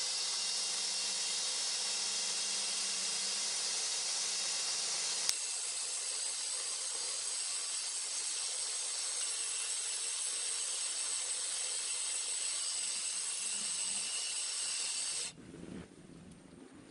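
Power abrasive tool grinding the steel head of a small hatchet, a steady hiss of metal on abrasive while it is cleaned and flattened before sharpening. A sharp click comes about five seconds in, and the hiss cuts off abruptly about fifteen seconds in.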